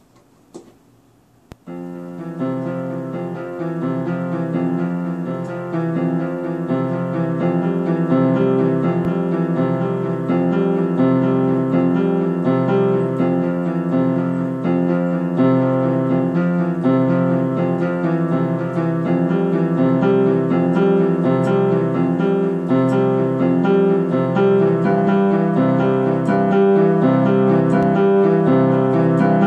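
Yamaha electronic keyboard with a piano voice, improvised freestyle on the white keys only. It comes in about a second and a half in, after a few faint clicks, with a repeating bass figure under held higher notes, and grows louder over the first few seconds.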